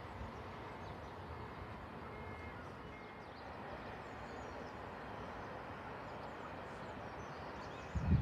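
Steady, faint background noise beside a railway line, with faint bird chirps. Near the end a sudden loud, irregular low rumble sets in.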